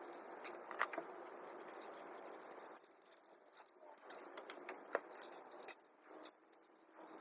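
Metal hand tools and parts clinking and rattling, with sharp clinks about a second in and again near five seconds, over a steady background hiss.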